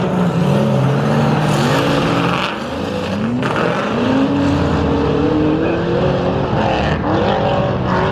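Drift cars' engines revving hard, the note climbing and falling again and again as they slide sideways with tyres squealing.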